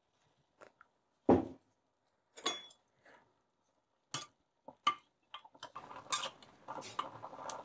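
A spoon knocking and scraping against a clay pot while quelite leaves are pushed down into the water, a handful of separate knocks with the loudest, deepest one about a second in. From about five seconds in, a dense patter of small clicks and rustling follows.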